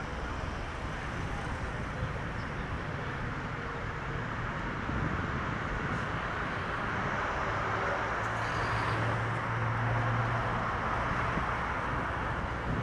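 Steady road traffic noise, with a vehicle's engine hum swelling as it passes close about eight to ten seconds in.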